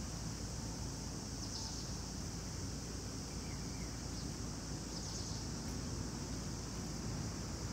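Steady high-pitched chorus of insects over a low outdoor rumble, with a couple of brief high chirps about a second and a half in and again about five seconds in.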